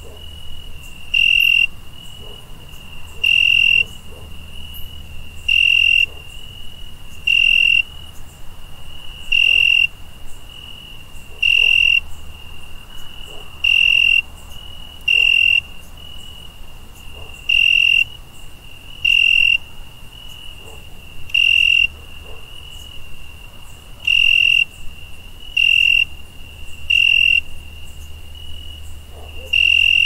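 Crickets chirping: a steady high trill with louder chirps on top, about one every one to two seconds at an uneven pace.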